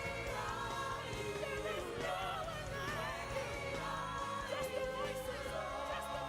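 Live worship music: voices singing a slow, wavering melody over sustained keyboard chords and bass, with a choir-like blend of voices.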